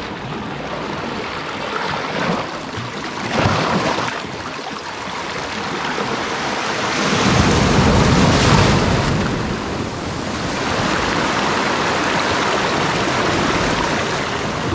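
Sea waves breaking over rock ledges and washing through the rocks, with a steady rush of surf. A bigger wave crashes about halfway through, the loudest moment.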